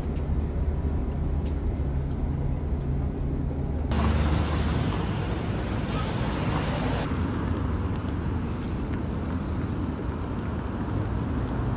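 Steady low hum and rumble of a running vehicle. About four seconds in it changes suddenly to a louder, hissier noise, which drops back to a quieter steady rumble about three seconds later.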